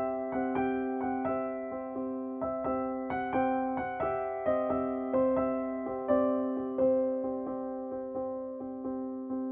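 Background music: gentle electric piano notes struck a few times a second over a held low note, each note fading away.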